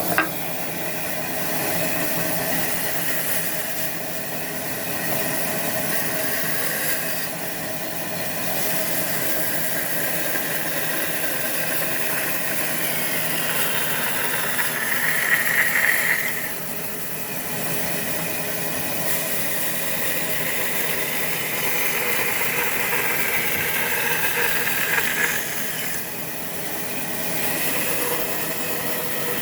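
Powered wood-cutting saw machine running steadily and cutting wood, a constant mechanical drone with a hiss over it, growing louder and higher in two longer stretches around the middle and later on.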